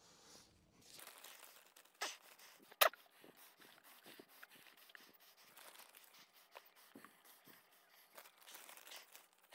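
Hands crumbling clumped potting compost into a wooden seed-tray crate: a faint, irregular crackly rustling of soil, with a sharp tap about three seconds in.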